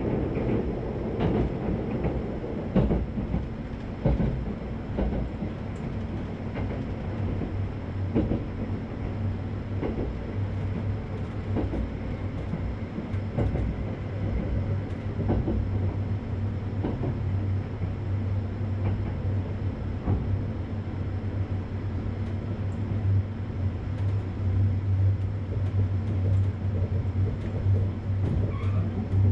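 Electric train running on rail track: a steady low rumble and hum, with wheels clicking over rail joints at irregular intervals.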